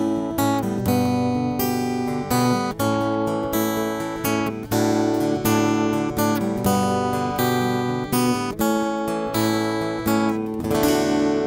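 Acoustic guitar strummed in a steady rhythm of chords, the last chord left ringing out near the end.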